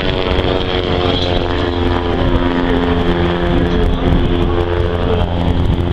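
Aviat Husky light plane's piston engine and propeller running at full power on takeoff and climb-out, a steady droning tone over a low rumble.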